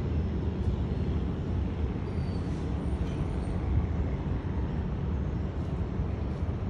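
Low, steady rumble of a diesel train approaching across a steel railway bridge.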